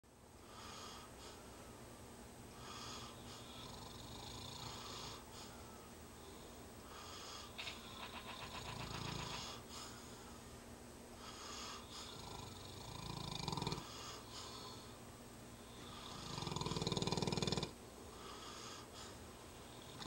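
Snoring of a sleeper: slow breaths repeating every two or three seconds, one with a rattle about eight seconds in and the loudest a few seconds before the end.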